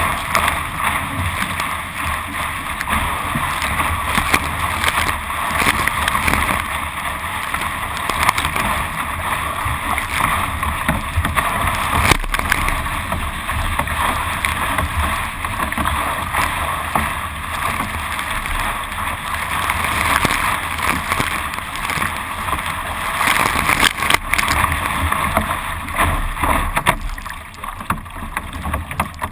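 Water rushing and splashing along the bow of a Carbonology Atom surf ski as it is paddled through small waves, heard close up from a camera on the deck: a steady noisy wash that swells and eases, quietening near the end. A single sharp knock about twelve seconds in.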